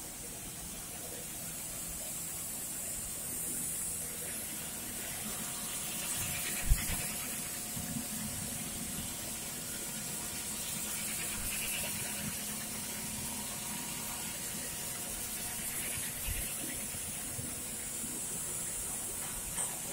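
Single jersey circular knitting machines running, a steady mechanical whir with a high hiss. Two dull low thumps break in, the louder about a third of the way in and a weaker one later.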